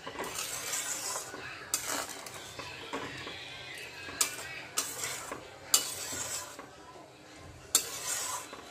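Long metal spatula stirring a boiling curry in a steel kadai, scraping and sloshing, with several sharp clinks of metal on the pan.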